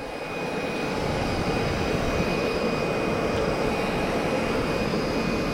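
Steady mechanical drone with a faint, constant high whine over it.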